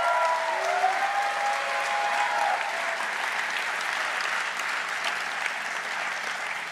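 Audience applauding, with a few voices calling out over the clapping in the first couple of seconds. The applause tapers off near the end.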